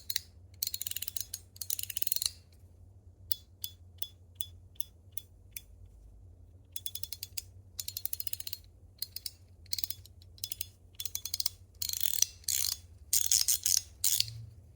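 PEI plastic paragraph fidget slider being slid back and forth by hand. It makes quick runs of sharp clicks, with single clacks in between as the slides snap into place.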